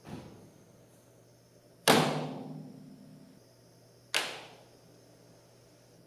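Spray foam insulation on a metal Quonset hut roof popping and cracking three times: once at the start, loudest about two seconds in with a long ringing fade, and again about four seconds in. Each pop is the foam contracting and pulling away from the metal roof, leaving a small gap.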